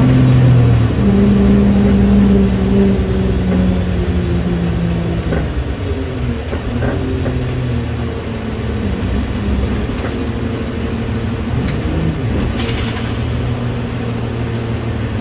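Garbage truck engine running as the truck drives, heard from inside the cab, its note shifting over the first few seconds and then settling. A short hiss comes about twelve and a half seconds in.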